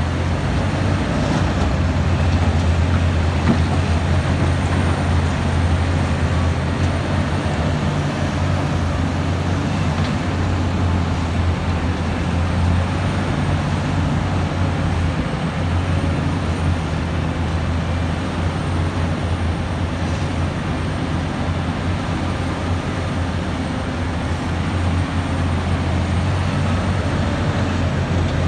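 Liebherr 984 mining excavator's diesel engine running steadily under working load as the machine digs, swings and dumps soil into a dump truck: a deep, even engine drone.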